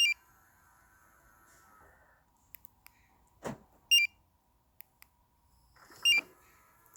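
Short electronic beeps from a Magicar CF Gold remote-start car alarm as its remote is worked: one at the very start, another about four seconds in and one more about six seconds in, with a sharp click just before the second. A faint steady electric hum runs through the first two seconds and comes back near the end.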